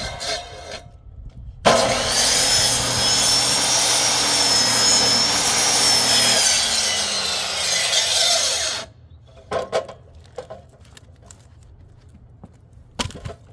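An angle grinder fitted with a wood saw blade starts up and cuts through a log for about seven seconds, its high whine sagging near the end of the cut, then stops suddenly. A few light knocks follow.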